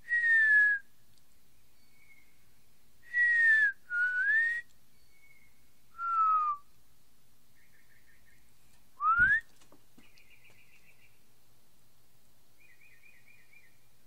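A person whistling five short notes close by, each a single falling or rising glide, trading calls with birds that answer faintly in between with short high whistled notes and, in the second half, brief trilled calls.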